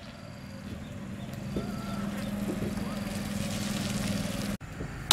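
A steady engine hum that slowly grows louder, then cuts off suddenly near the end.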